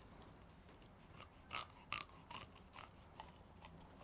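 Knife cutting a trout on a wooden cutting board: faint short scrapes and clicks, the two loudest a little before two seconds in.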